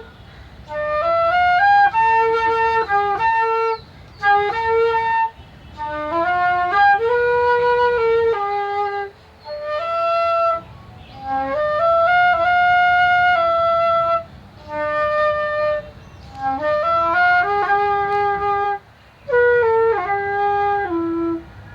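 A solo wind instrument playing a sad melody one note at a time, in short phrases broken by brief pauses.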